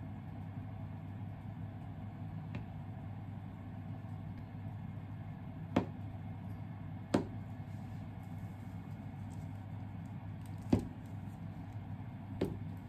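Kitchen knife cutting through a block of tofu and knocking sharply on the cutting board four times, a second or more apart, over a steady low hum.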